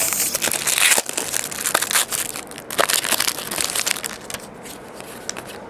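Foil trading-card pack wrapper crinkling loudly as the pack is ripped open. After about three seconds it turns to quieter handling of the cards, with a few light clicks.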